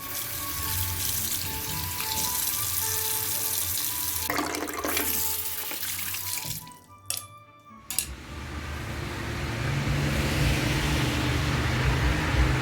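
Running water, with soft background music; about two-thirds of the way through it gives way to a steadier low hum.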